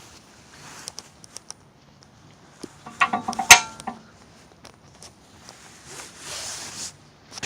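Metal tools or parts being handled and set down: scattered small clicks, then a ringing metal clink about three seconds in that ends in a sharp knock, the loudest sound. A soft rush of noise follows near the end.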